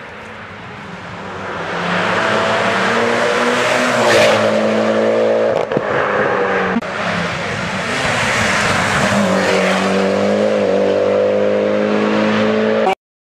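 Mitsubishi Lancer X hill-climb race car's engine at full throttle, revving up through the gears, its pitch climbing and then dropping at each gear change. It grows louder over the first couple of seconds as the car comes up the road.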